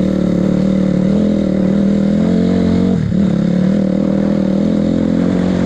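2006 Honda CRF250R's single-cylinder four-stroke engine running steadily under way on the road. Its pitch drops sharply and comes straight back about three seconds in.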